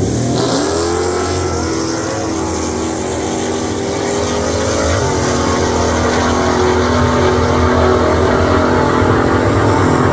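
Supercharged 392 Hemi V8 (6.4 L) in a RAM pickup truck at full throttle on a quarter-mile drag pass. The engine note climbs from the launch, breaks briefly about five seconds in, then drones on steadily as the truck pulls away down the track.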